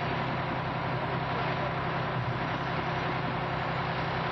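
Steady electrical arcing from a crane truck whose boom is in contact with a high-voltage line: the current runs to ground through the outrigger pad, which smokes and burns into the earth.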